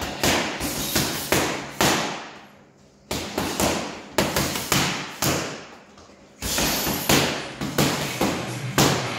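Boxing gloves punching focus mitts: a run of sharp smacks, about two to three a second, each ringing briefly in the room, with two short pauses.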